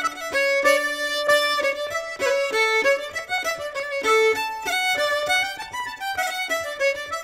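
Fiddle and concertina playing a lively folk tune in a run of short, quick notes.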